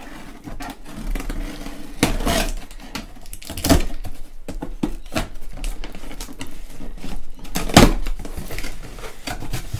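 A cardboard shipping box being opened by hand: packing tape slit along the seam with a small blade and pulled, and the cardboard flaps rustling and scraping, in irregular strokes with a few sharper rips about four and eight seconds in.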